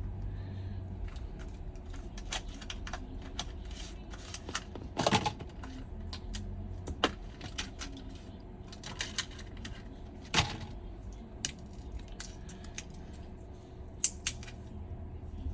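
Small metal tools and tiny parts clicking and tapping during smartphone reassembly on a workbench, irregular light clicks with a few sharper knocks about five, ten and fourteen seconds in, over a low steady hum.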